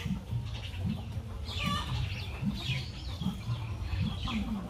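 Chickens clucking and other birds calling in short curved calls, mostly after the first second and a half, over a steady low rumble.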